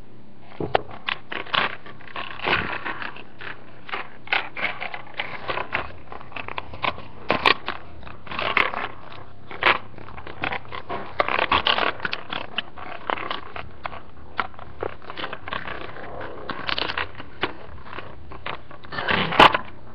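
Green hard-plastic toy case handled and rubbed right at the microphone: irregular crackles, clicks and scrapes, with a louder burst of crackling near the end.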